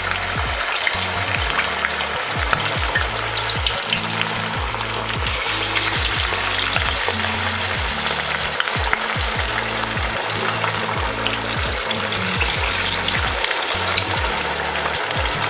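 Batter-coated boiled potato pieces deep-frying in hot oil in an aluminium kadai: a steady, dense crackling sizzle, a little louder from about five seconds in, as the batter crisps.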